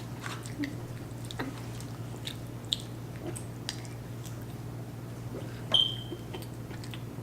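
Children chewing and biting fast food, with scattered small mouth clicks and smacks over a steady low hum. A brief high squeak sounds near six seconds.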